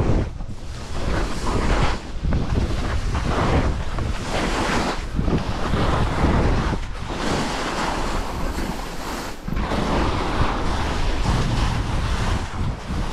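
Skis sliding and scraping over snow during a downhill run, under heavy wind noise on the camera microphone. The rushing noise swells and dips every second or two with the turns.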